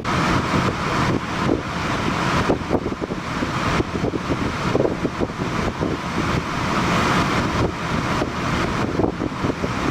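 Strong blizzard wind buffeting the microphone, with a motor vehicle running under it.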